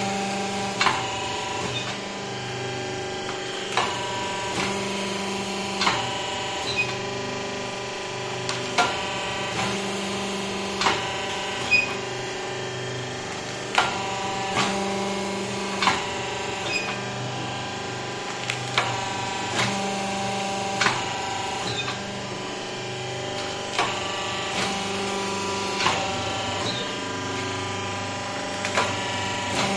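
Automatic paper plate making machine running: a steady motor hum under a repeating cycle of about five seconds, each cycle bringing about three sharp metallic knocks from the press and feed mechanism, several with a brief ringing.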